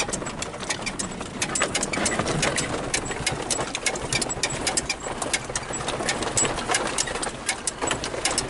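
Jeep driving on a rough dirt road: steady road and engine noise from inside the cab, with a dense, irregular patter of clicks and rattles from the tyres and the bumpy, gravelly surface.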